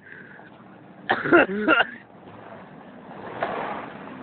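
A person's voice in a brief outburst about a second in, then a swell of rushing noise that peaks near the end.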